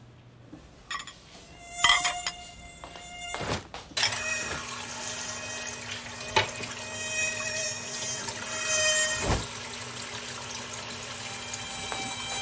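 A mosquito whining, a steady high buzz that starts suddenly about four seconds in and swells for a while, over water running in a kitchen sink.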